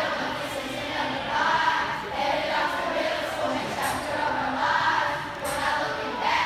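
A group of children singing and rapping together in unison.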